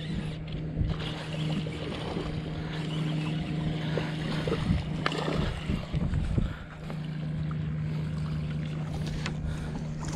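Spinning reel being cranked steadily while a redfish is reeled in, giving a steady low gear whir that stops for about a second midway and then resumes, over wind noise on the microphone.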